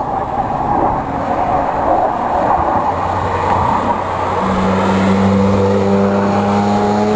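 A car driven hard on the track going past: a loud rush of engine and tyre noise, then from about four seconds in a steady, droning engine note.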